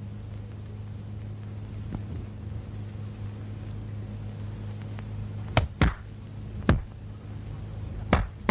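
Sharp, loud knocks start a little past halfway: two in quick succession, a third a moment later, then two more near the end. Under them runs a steady low hum.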